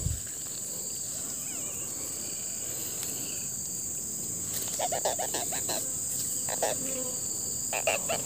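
Steady high-pitched insect chorus of crickets. There are a few short bursts of clicking about halfway through and again near the end.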